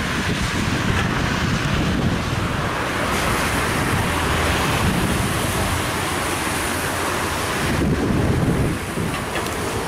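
Wind buffeting the camera's microphone: a steady, rushing rumble.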